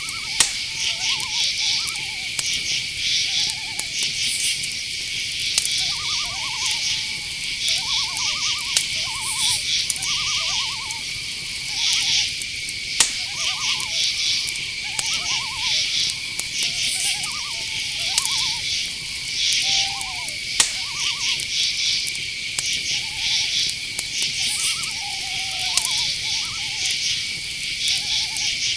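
Night forest soundscape: a steady, high-pitched chorus of chirping crickets, with short hooting owl calls repeating every second or two, and a few sharp clicks.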